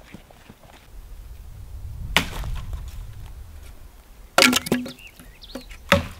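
Dry mesquite wood cracking and snapping as a dead branch is struck and broken off for firewood: one sharp crack about two seconds in, a quick cluster of snaps around four and a half seconds, and another crack near the end.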